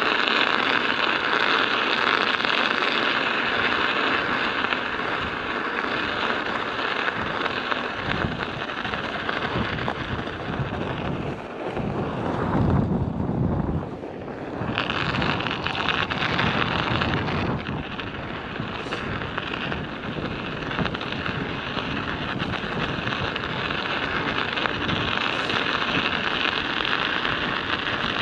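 Studded bicycle tyres rolling on an icy road: a steady rattling hiss of the metal studs on the ice, with wind buffeting the microphone. About twelve seconds in, the higher rattle drops away for a couple of seconds under a low rumble, then comes back.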